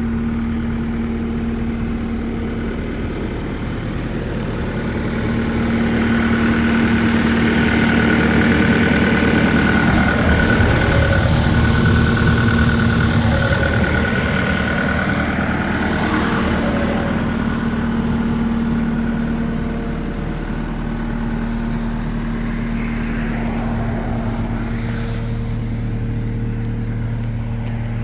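2015 New Holland L228 skid steer's diesel engine running at a steady idle. For about ten seconds in the middle it runs louder, with a steady whine over the engine, before settling back to idle.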